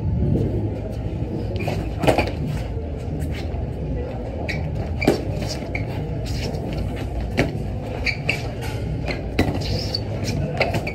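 Boxing gloves landing during sparring: irregular short smacks and pats of punches on gloves and body, the sharpest about two and five seconds in, with footsteps on the floor, over a steady low hum.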